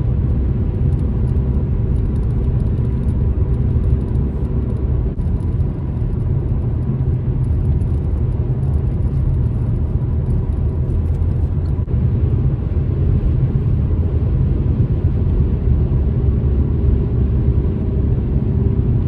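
Steady road and engine rumble inside a moving car's cabin, heavy in the low end, while driving on the highway.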